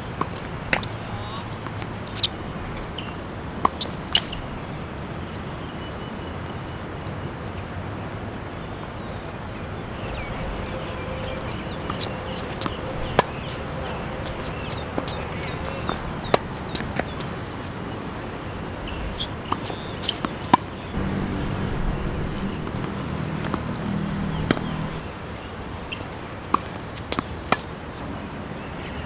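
Tennis ball struck by rackets and bouncing on a hard court: sharp pops spread irregularly through rallies. A steady low hum comes in about two-thirds of the way through and stops a few seconds later.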